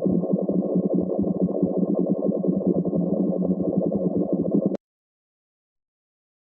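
Sound effect of bubbles welling up and overflowing: a dense, rapid, muffled bubbling that stops abruptly about three-quarters of the way through.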